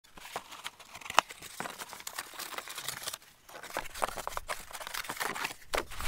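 Hands working dry, crumbly soil in a wooden frame and setting a cardboard egg carton onto it: irregular rustling and crunching with scattered small clicks, one sharp click about a second in.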